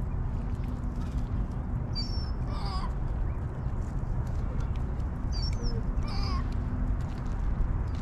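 Birds calling in two short bursts, about two seconds in and again about five and a half seconds in, over a steady low rumble.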